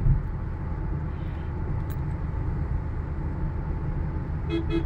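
Steady road and tyre noise with engine hum, heard from inside the cabin of a Maruti Suzuki Ertiga CNG cruising on a highway.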